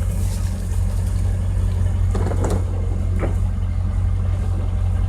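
Vehicle engine idling: a steady, unchanging low hum.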